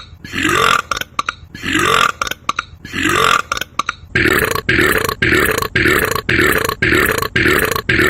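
A man belching over and over in evenly spaced, near-identical burps. They come about one a second, then about two a second from about four seconds in.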